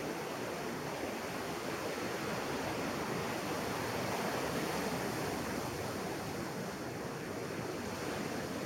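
Ocean surf: small waves breaking and washing up a sandy beach, a steady wash of noise.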